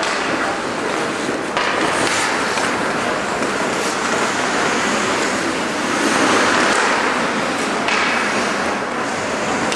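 Steady rushing noise of ice hockey play in a rink, with skate blades scraping across the ice.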